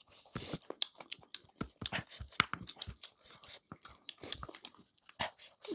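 Close-up mouth sounds of chewing cooked chicken: irregular wet smacks and small crunches.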